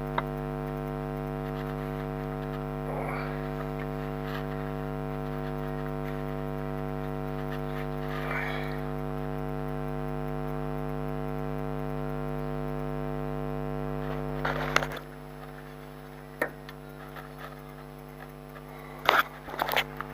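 Steady electrical mains hum that drops away abruptly about fifteen seconds in, followed by a few sharp metallic knocks and clanks from work on the car's front suspension.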